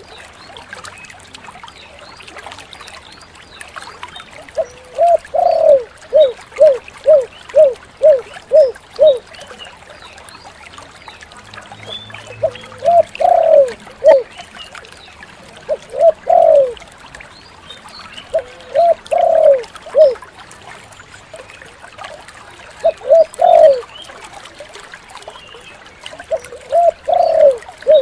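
Spotted dove cooing: a phrase of a few drawn-out notes running into a quick series of about seven short coos, then shorter coo phrases every three to four seconds, over a steady faint hiss.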